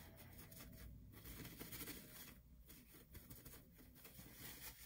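Near silence, with faint rustling of paper being handled on a desk.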